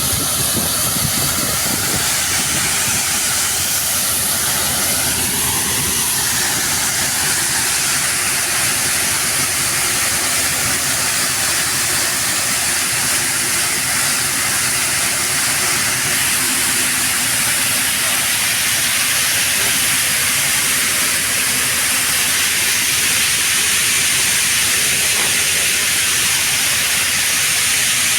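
Grain dryer running: a steady, loud rushing hiss from its fuel-fired burner and fan.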